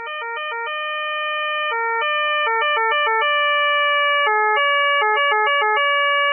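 Austrian police two-tone siren sounding, stepping abruptly between a lower and a higher note rather than gliding: bursts of quick switches alternate with notes held for a second or more. It grows louder over the first few seconds.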